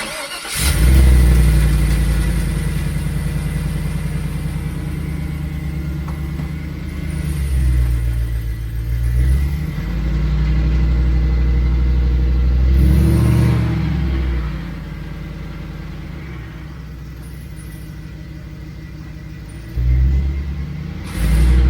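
A Jeep's engine starts and runs on jack stands, driving the front driveshaft through an NP231 transfer case. The revs rise and fall several times over a steady low drone, with a thin steady high whine underneath. The owner is chasing this whine and suspects the transfer case.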